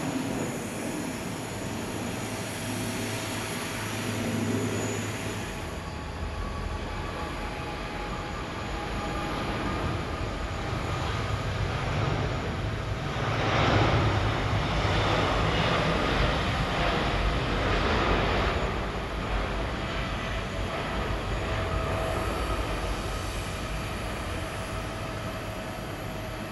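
A Fokker 50 twin turboprop climbing away after takeoff. After about six seconds it gives way to the steady noise of a Singapore Airlines Boeing 787-10's twin turbofans at takeoff thrust on the takeoff roll, swelling to its loudest around the middle and easing as the airliner lifts off.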